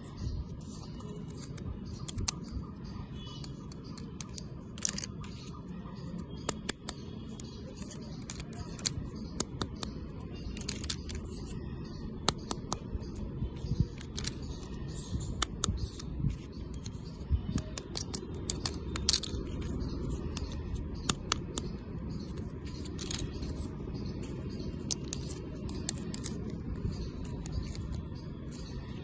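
Irregular sharp clicks and taps of hard plastic being handled, a toy gun and its packaging, over a steady low hum.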